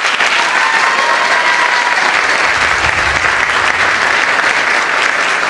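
Audience and cast applauding: loud, steady clapping that breaks out all at once.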